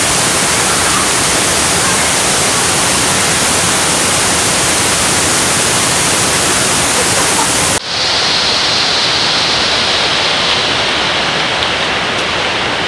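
Loud, steady rushing of a waterfall and its river. About eight seconds in the rush changes abruptly, losing its highest hiss.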